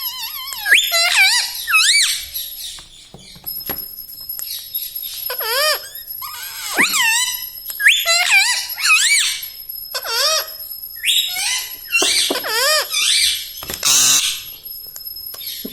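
Ringneck parrot giving a string of high, warbling squeaks and whistles, each call wavering quickly up and down in pitch, in short runs with brief pauses. About fourteen seconds in there is one harsher screech.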